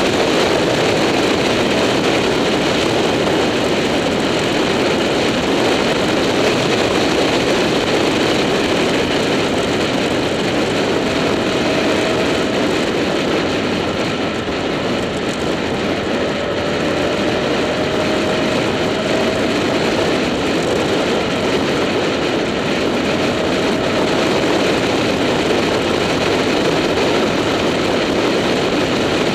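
Motorcycle riding at road speed: steady wind rush over the camera's microphone mixed with the engine's drone, the engine note rising slowly in pitch a few times as it accelerates.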